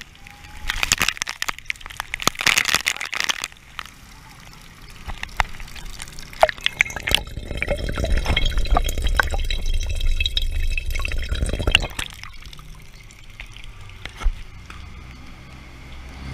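Water splashing and pouring during an outdoor bath in the rain, with a few scattered splashes early on. In the middle it turns into a louder, rumbling stretch of water close against the microphone for about five seconds, then eases off.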